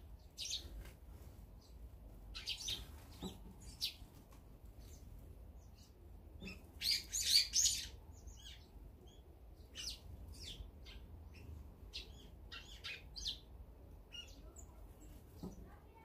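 Sparrows chirping in short, scattered calls, with a louder cluster of chirps about seven seconds in.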